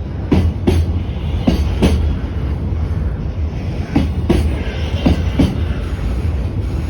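Freight train of Koki container flat wagons rolling past, a steady low rumble with the wheels clacking over rail joints in quick pairs of clicks, one pair every second or so.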